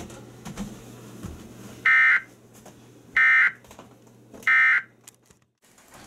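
Emergency Alert System end-of-message signal: three short bursts of the SAME digital data tone, a buzzing warble, a little over a second apart. It marks the end of the alert broadcast.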